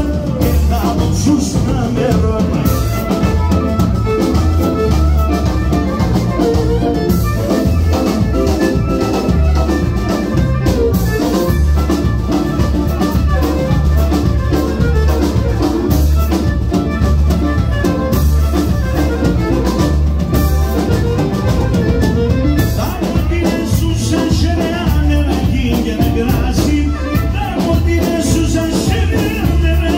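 Live Pontic Greek dance music played loud by a band, with a drum kit keeping a steady beat.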